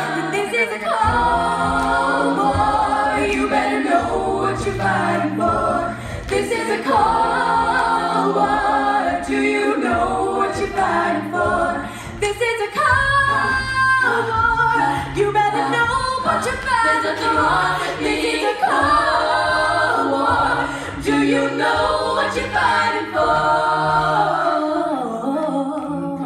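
Youth a cappella choir singing in chords without instruments, with a bass voice holding steady low notes under the upper voices.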